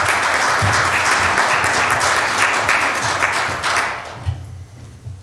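Congregation applauding, a dense patter of many hands clapping that fades away about four seconds in.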